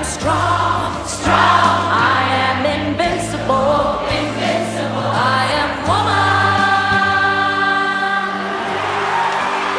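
A song: a lead vocal with a choir echoing the lines "I am strong" and "I am formidable", over held chords.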